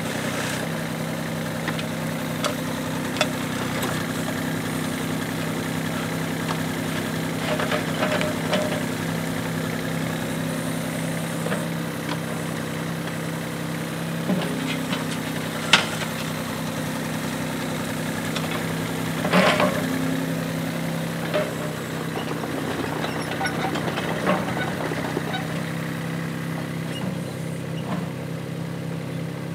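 Yuchai YC15-7 mini excavator's diesel engine running steadily while the arm and bucket dig, with a few sharp clanks from the bucket and linkage, the loudest about halfway through.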